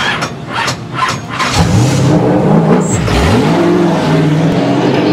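Late-model stock car engine revving. Its pitch climbs about a second and a half in, drops sharply and comes back up around three seconds in, then holds steady. A few short, sharp noises come before the revving.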